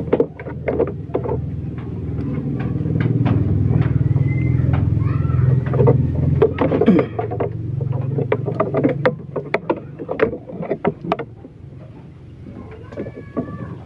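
A low, steady engine-like rumble swells over the first few seconds and fades away about nine seconds in. Many sharp clicks and rustles of close handling run through it, with a few short chirps.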